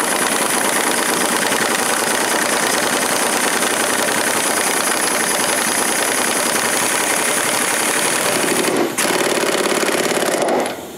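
Matco Tools pneumatic impact wrench running, hammering and hissing as it tightens a sway bar link nut while the stud is held with a wrench. It runs for about nine seconds, stops briefly, then fires again for a second or two near the end.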